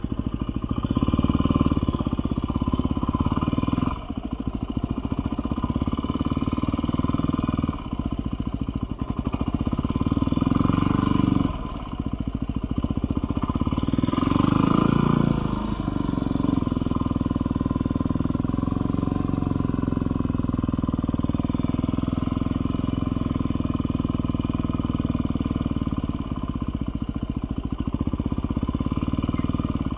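2018 Yamaha WR250R's single-cylinder four-stroke engine running in low gear at walking pace, heard from the rider's seat. The note dips briefly about four, eight and twelve seconds in and revs up and back down about halfway through, then runs steadily.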